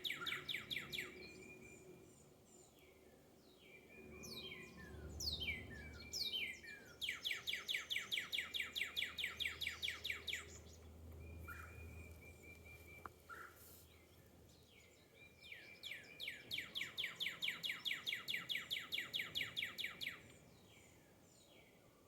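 Songbirds singing: a fast trill of evenly repeated notes, about seven a second, comes three times, at the start, around the middle and near the end, with quick falling whistled notes between the trills. A faint low rumble sits under the middle stretch.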